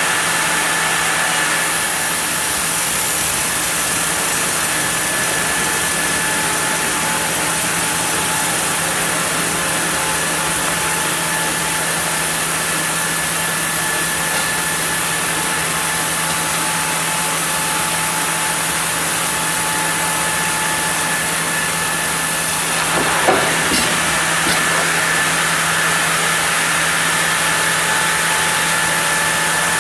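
Sawmill saw milling a block of zelkova hardwood, a steady loud run with a constant hum and a high whine. A short knock comes about three-quarters of the way through.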